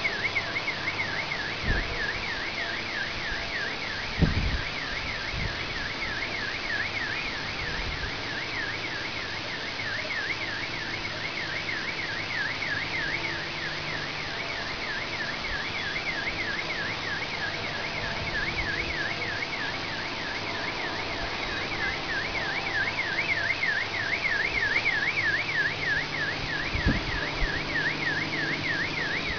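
Car alarm siren warbling rapidly up and down, several sweeps a second, without a break, over a steady low drone that sounds like an airplane motor in the background. A few brief low thuds, the loudest about four seconds in.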